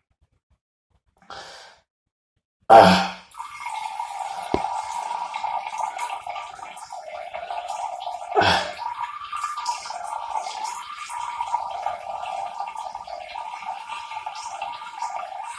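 A urine stream splashing into toilet water. It starts with a loud burst about three seconds in and then runs steadily, with a second splash surge partway through.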